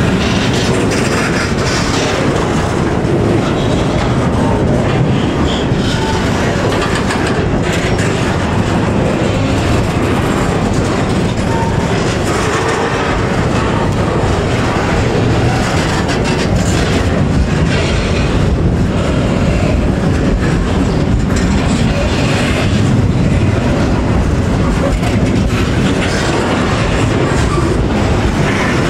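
Container freight train wagons rolling past at very close range: a steady, loud rumble of steel wheels on rail, with clickety-clack over the rail joints.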